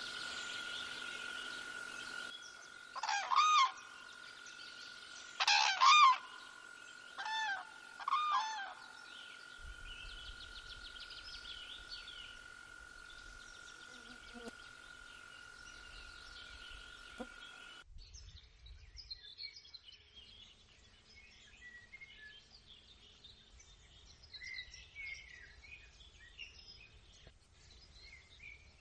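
Common cranes trumpeting: a run of loud, ringing calls in four bursts between about three and nine seconds in, over a faint steady high whine. After about eighteen seconds only faint songbird chirps remain.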